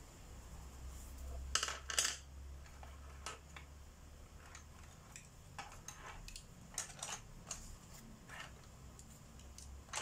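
Wooden colored pencils clicking and clacking against one another and on the desk as they are picked up, swapped and set down. Two louder clacks come about one and a half to two seconds in, followed by lighter scattered taps.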